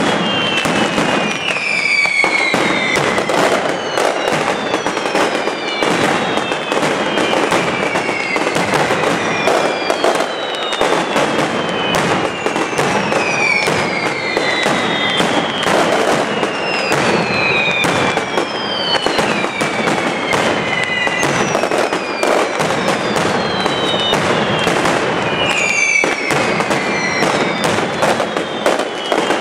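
Mascletà firecrackers (strings of tracas and masclets hung on cords) going off in a dense, continuous crackle of sharp bangs. Falling whistles recur every couple of seconds over the crackle.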